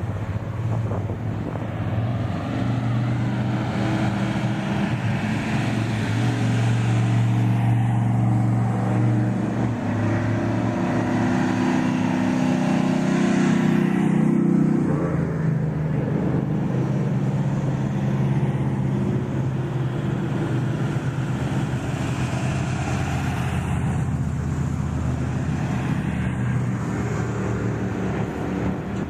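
Off-road race vehicles' engines running at parade speed as the entries roll by, a steady low engine note whose pitch drops about halfway through as one vehicle gives way to the next.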